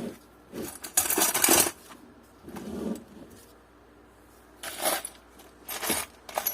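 Loose metal bolts and screws clinking as they are rummaged through by hand, in a few short bursts with pauses between.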